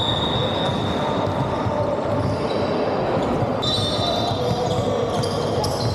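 Basketball being dribbled and played on a sprung wooden court, with the players' shoes squeaking in short, high-pitched chirps on the floor and spectators' voices in the background.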